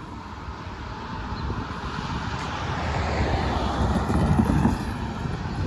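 A pickup truck drives past over the railroad crossing close by. It gets louder to a peak about four seconds in, with wind rumbling on the microphone.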